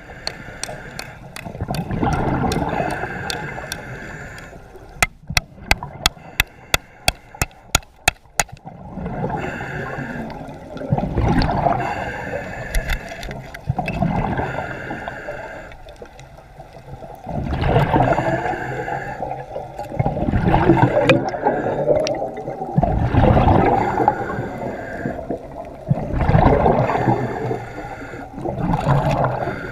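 Underwater water noise rushing and gurgling in swells every few seconds, with a quick run of about a dozen sharp clicks, roughly four a second, a little before the middle.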